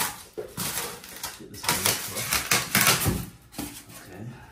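Packaging being handled and pulled apart by hand: a quick, irregular run of crinkles, rustles and clicks.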